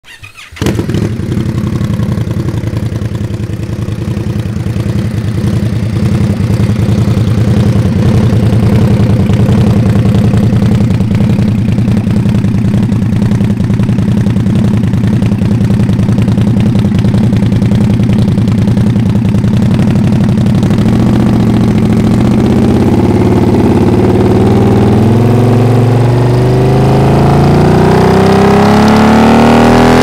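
2025 Indian Scout 101's 1250 cc V-twin, breathing through a Freedom Performance Radical Radius two-into-one exhaust, fires up about half a second in and settles into a steady, loud idle. From about twenty seconds in, the engine speed climbs slowly and steadily as the throttle is opened.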